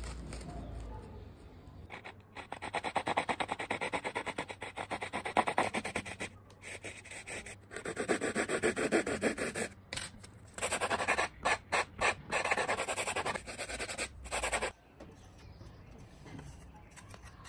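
Hand-held hacksaw blade sawing through a block of thermocol (expanded polystyrene foam), in rapid back-and-forth strokes. The sawing starts about two seconds in, comes in several runs with short pauses, and stops near the end.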